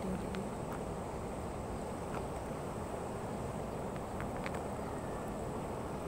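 Steady rushing of a shallow river flowing over stones, with a thin, high, steady insect drone above it and a few faint clicks.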